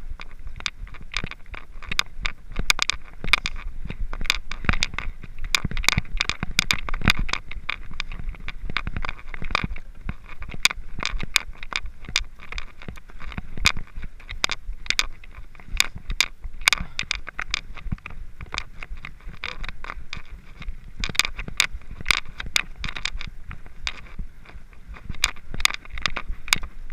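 Mountain bikes rolling past on a dirt track: a steady stream of sharp, irregular clicks and rattles with tyres scraping over the ground.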